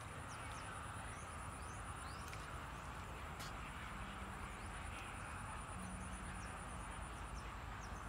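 Dusk wetland ambience: a steady, high-pitched insect trill over a constant hiss, with short faint bird chirps scattered throughout.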